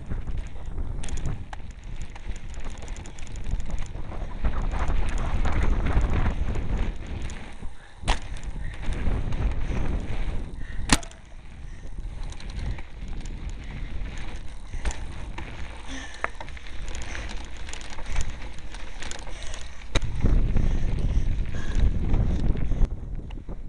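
Wind buffeting the microphone of a bike-mounted camera riding over a dirt track: a rumbling noise that swells and drops, with a few sharp knocks along the way.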